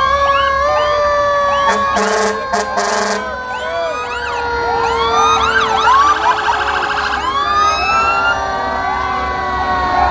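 Several fire and emergency vehicle sirens sounding at once. A long siren tone slides slowly down in pitch throughout, like a mechanical siren coasting down, with many short whooping sweeps over it. A horn blasts for about a second, two seconds in, and a rapid warbling burst comes around six seconds.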